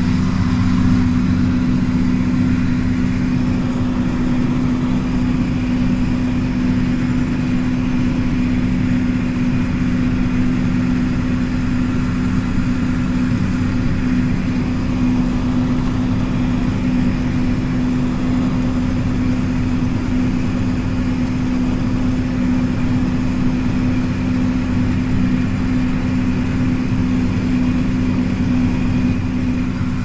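John Deere 4755 tractor's six-cylinder turbo-diesel engine running steadily under ploughing load, heard from the cab, with a constant low drone that holds the same pitch throughout.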